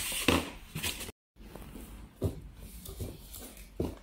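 A cardboard box and sheets of coloured paper being handled: rustling and a few soft knocks. The sound cuts out completely for a moment about a second in.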